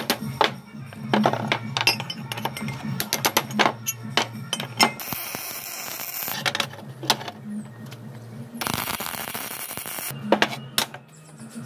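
A hammer striking a steel bushing and arm, a quick irregular run of sharp metal strikes, then two bursts of electric welding crackle on steel, about five and nine seconds in. Background music runs underneath.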